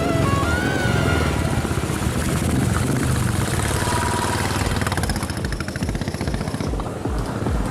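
Royal Enfield single-cylinder motorcycle engine running with a fast, even thumping beat, with background music fading out in the first second or so.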